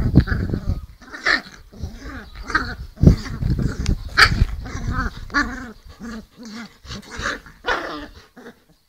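Bernese mountain dogs play-fighting: an irregular run of growls and short barks, with a sharper, louder bark about four seconds in. The growling is play, not real aggression.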